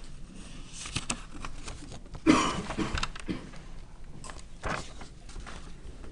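Sheets of paper rustling and being handled as a page is turned to a fresh blank sheet, with a louder rustle a little over two seconds in and a few light knocks and clicks around it.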